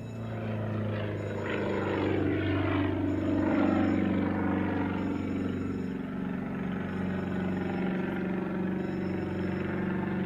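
Low-flying aircraft passing by, its engine and propeller tone sliding down in pitch as it goes past. It is loudest a few seconds in, then holds a steady drone.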